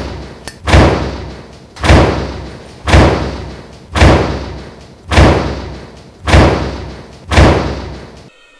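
A heavy, echoing thud repeats about once a second in a steady rhythm, eight times in all, and cuts off suddenly near the end.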